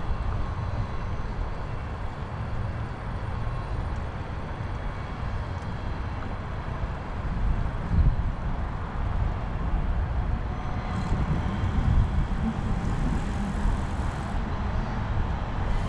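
Wind rushing over the microphone of a camera riding along on a moving bicycle: a steady low rumble that swells in stronger gusts about halfway through and again a few seconds later.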